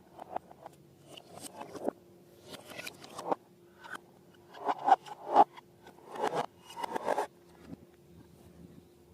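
Hands working slime and balloons: an irregular series of scraping, crackling strokes, loudest about five seconds in.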